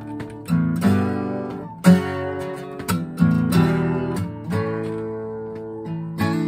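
Acoustic guitar strummed in slow chords, each strum ringing out and fading before the next.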